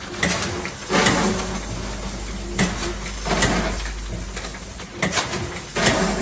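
Ilapak vertical form-fill-seal bagging machine running: a steady hum broken by pairs of sharp mechanical strokes, one pair about every two and a half seconds, as the machine cycles through forming and sealing bags.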